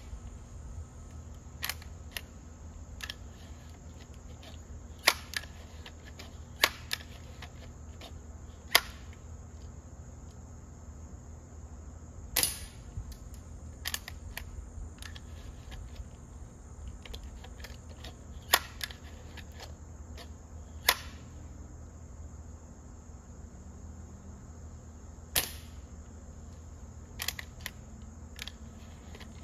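Legacy 1000 break-barrel air rifle being fired and handled outdoors: about a dozen sharp cracks and clicks at irregular intervals a few seconds apart, from shots and from working the rifle between them.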